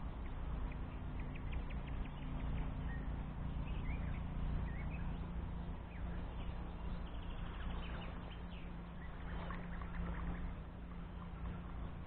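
Wind buffeting the microphone, a steady low rumble with a faint hum in it, with faint scattered clicks and short chirps above it.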